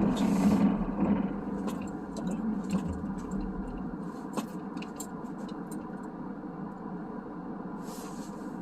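Car cabin noise while driving: a steady low hum of engine and tyres, a little louder in the first second or so, with scattered faint ticks and clicks.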